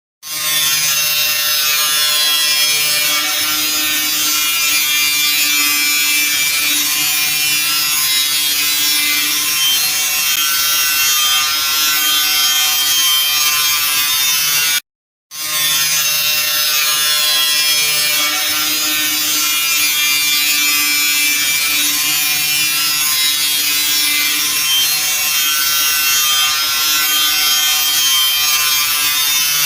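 Crash-damaged car making a harsh, continuous grinding and rasping noise over a low hum. The same stretch of about 15 seconds plays twice, with a short drop-out between.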